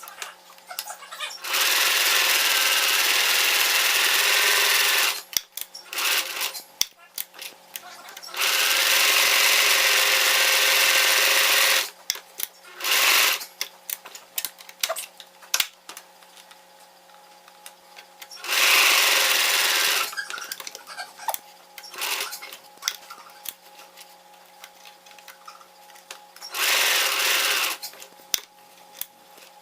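Singer Merritt electric sewing machine running in several bursts of a few seconds each, the longest about three and a half seconds, with clicks and knocks between the runs.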